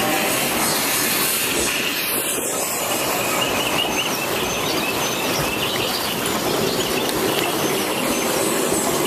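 Water rushing and splashing along a log flume ride's trough as the log boat floats through it, a steady rushing noise.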